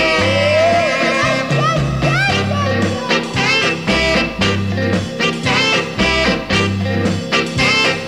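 Swing-style background music with brass and a steady repeating bass line.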